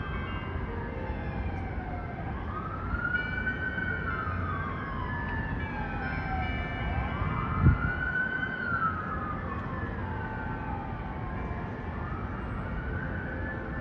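Emergency vehicle siren in its wail mode, rising and falling slowly about three times, over a steady low city rumble. A single sharp thump comes a little past halfway.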